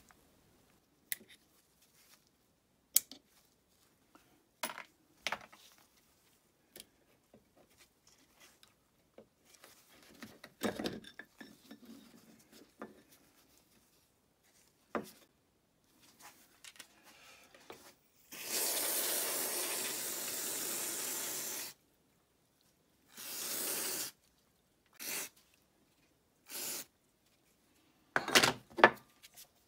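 Light clicks and knocks of small parts being handled, then a steady spray hiss of about three and a half seconds followed by three short bursts, as dust and grime are cleaned out of the electric power steering pump's housing.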